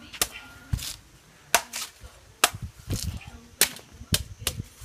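Machete chopping into the husk of a green dừa sáp (macapuno) coconut: a quick, irregular series of about ten sharp chops.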